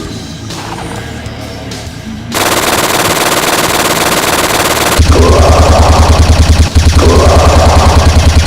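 Rapid automatic gunfire, machine-gun style, starting about two seconds in over music. It becomes louder and more evenly pulsed about halfway through, with a brief break near the end.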